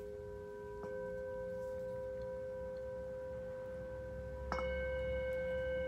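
Handheld brass singing bowl ringing with several steady tones. It is struck with a wooden mallet, lightly about a second in and more firmly near the end, which brings in higher ringing tones.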